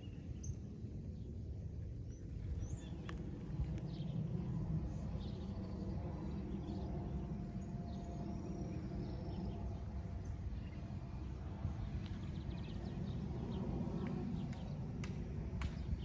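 Outdoor rural ambience: a steady low rumble with faint, scattered bird chirps.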